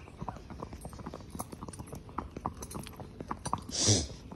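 Horses' hooves clip-clopping on an asphalt road in an irregular patter, with a brief loud whoosh about four seconds in.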